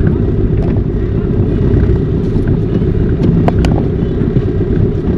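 Steady low rumble of a moving vehicle with wind buffeting the microphone, and a couple of sharp clicks about three and a half seconds in.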